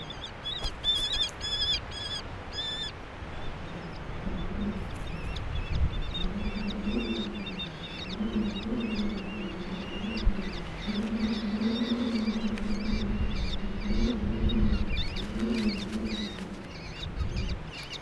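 Eleonora's falcons calling at the nest: a quick series of about six high, sharp calls in the first three seconds, then fainter high calls. From about four seconds on, a low, wavering call repeats roughly once a second beneath them.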